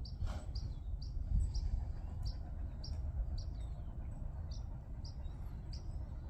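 A bird chirping repeatedly: short, high chirps about twice a second, over a low steady rumble.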